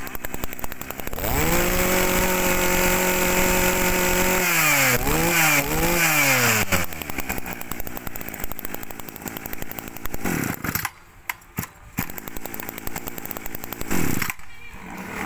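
Small two-stroke engine of a Kioritz brush cutter running at full throttle with a steady high whine. About four seconds in it is revved down and up three times, then drops back to a lower, rougher idle.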